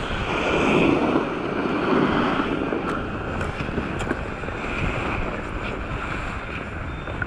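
Wind rushing over an action camera's microphone, with skis sliding on packed snow; loudest in the first two seconds.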